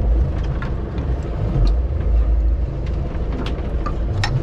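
Fishing boat's engine running steadily, a low rumble, with a few light clicks over it.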